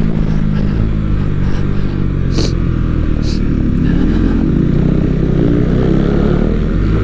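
KTM Duke 390 single-cylinder motorcycle engine running steadily under way, its pitch easing up slightly in the second half, with a heavy low rush of wind and road noise.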